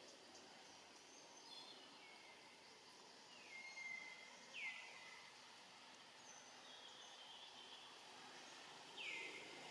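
Faint outdoor ambience with several high, thin bird calls, each sliding down in pitch and then holding briefly. The clearest come about four to five seconds in and near the end.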